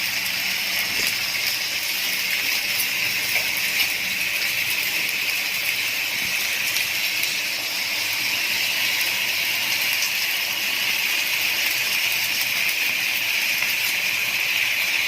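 Chicken breast pieces frying in olive oil in a pan over a medium flame, a steady sizzle with small crackling pops.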